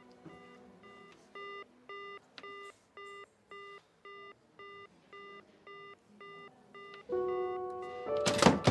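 Telephone busy tone heard from a handset: a run of short, evenly spaced beeps of one pitch, about two a second, the sign that the line has gone dead. Music comes in near the end, with a loud hit just before the close.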